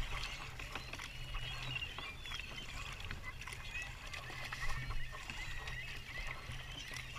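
Kayak being paddled: the paddle blades dip and splash in irregular strokes over a steady low rumble, with many faint high chirps in the background.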